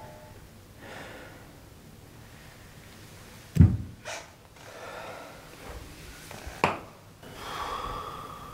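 A man breathing hard in short, shaky breaths, with a long sighing breath near the end. Two sharp thumps cut in, the louder one about three and a half seconds in and a second one a couple of seconds before the end.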